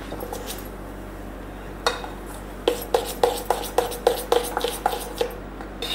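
Metal spoon stirring thick cake batter in a stainless steel bowl. It scrapes, then from about two seconds in it clinks against the bowl about three or four times a second, each clink ringing briefly.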